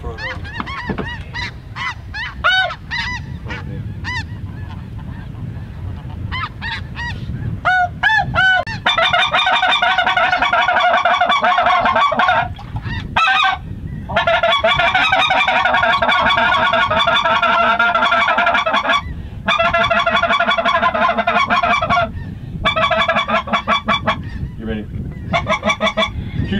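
Snow goose calls: scattered high honks at first, then from about nine seconds in a loud, dense chorus of many overlapping honks with a few brief breaks.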